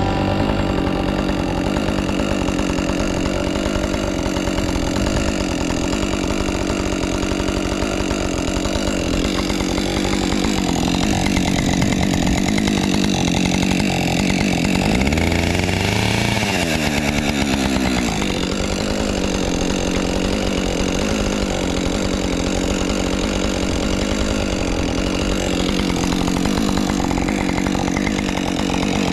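Husqvarna 550 XP two-stroke chainsaw running at high revs while carving into a log. Its pitch dips and then recovers about halfway through as it bogs in the cut.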